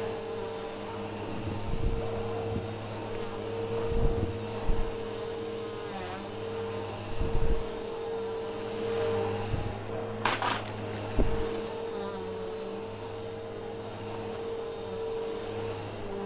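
Bissell vacuum cleaner running with a steady motor whine as it is pushed back and forth over carpet, sucking up bits of fluff. There are low thumps several times, and a brief sharp rattle about ten seconds in.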